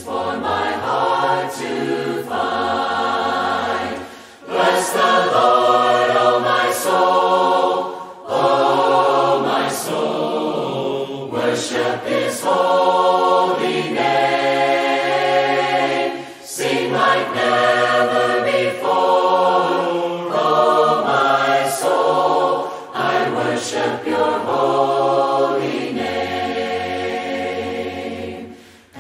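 A choir of mixed voices singing a hymn a cappella in parts, in phrases of a few seconds each with short pauses for breath between them.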